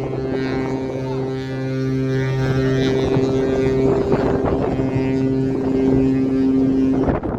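Costa cruise ships' horns sounding together: several long, steady blasts at different pitches overlapping, then cutting off together about seven seconds in. Wind noise on the microphone grows louder in the second half.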